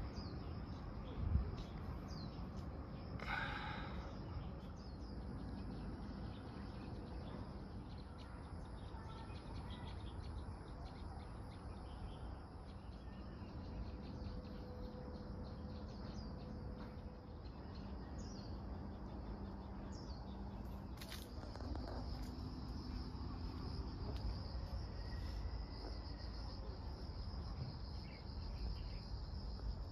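Outdoor ambience of insects chirping in a steady high buzz that grows stronger in the second half, with scattered bird chirps over a low steady rumble. A brief thump about a second in.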